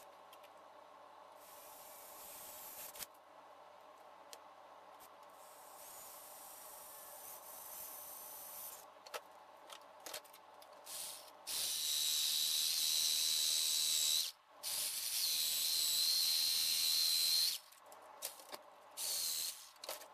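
Jigsaw cutting a slot into a plastic tube clamped in a vise, running with a steady high whine. It makes two cuts of about three seconds each, starting a little past halfway, and a short burst near the end. Before that there is only faint hum and handling.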